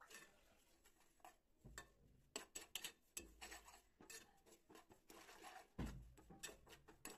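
Faint, scattered scrapes and light ticks of a metal spoon stirring sesame seeds as they roast in a pan.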